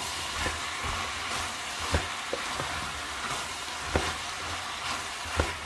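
Chopped chicken and vegetables, with zucchini just added, sizzling in oil in a pot while being stirred, the spoon knocking against the pot about six times.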